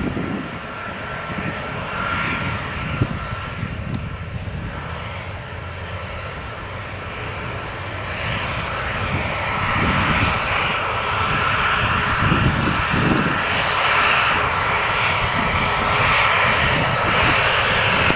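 USAF RC-135U Combat Sent's four turbofan engines running at low power as the jet taxis after landing: a steady jet roar with a thin high whine, growing louder about halfway through.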